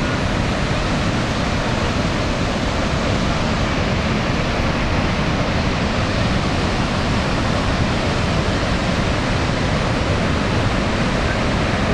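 Niagara Falls: the steady, loud rush of a huge waterfall, an unbroken roar of falling water.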